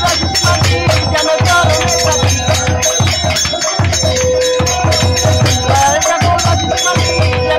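Bengali devotional kirtan music: a drum keeps a quick, steady beat under long held melody notes, with hand clapping.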